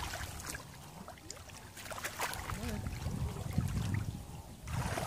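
Shallow muddy paddy water sloshing and splashing as people wade through it and feel along the bottom by hand, in uneven surges with small splashes, heaviest in the second half.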